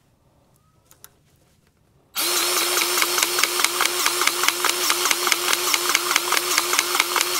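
Cordless grease gun starting about two seconds in and running with a rapid, even pulse as it pumps grease into a trailer's wheel bearing.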